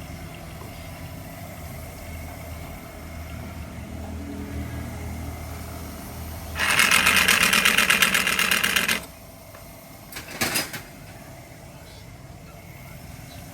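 A car engine idles with a low hum, then a loud, rapid mechanical rattle runs for about two seconds and comes again briefly a second later, like a power tool.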